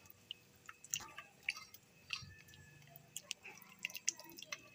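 Faint, scattered clinks, squelches and drips of a steel ladle scooping soft stewed tomatoes, onions and garlic out of mutton broth and tipping them into a plastic colander.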